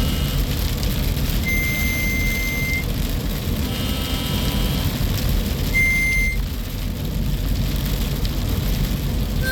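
Strong wind buffeting the microphone with a steady low rumble. A short high electronic beep sounds twice, about a second and a half in and again about six seconds in, with fainter tones between them.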